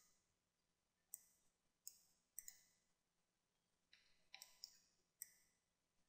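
Faint, scattered clicks of a computer mouse, about eight in all, some in quick pairs, over near silence.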